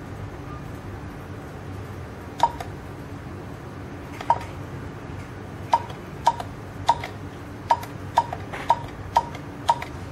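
Keypad of an INJES fingerprint access-control terminal beeping as keys are pressed to enter an ID number and password: about ten short beeps of the same pitch, two spaced apart, then about two a second.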